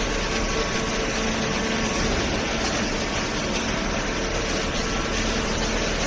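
Hydraulic baler machinery running with a steady hum and a faint even tone underneath.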